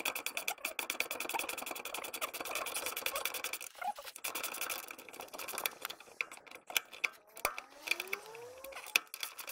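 Ratchet wrench clicking rapidly as the rear shock absorber's lower mounting nut is spun loose, pausing briefly about four seconds in, then thinning to a few scattered clicks and metallic taps near the end.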